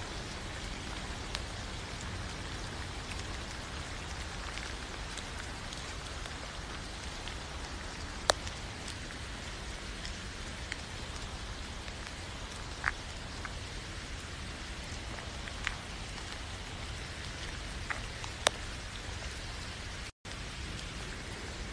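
Steady rain falling, an even hiss with a few sharper single drops standing out now and then. The sound cuts out for an instant near the end.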